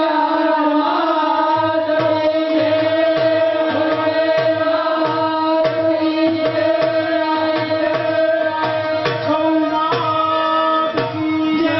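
Live stage music: a steady held chord over a hand-drum beat of about two strokes a second.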